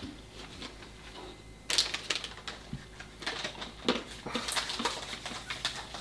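A small snack bag of cocoa-roasted almonds crinkling as it is torn open, starting suddenly about two seconds in, followed by irregular crisp clicks and crunches.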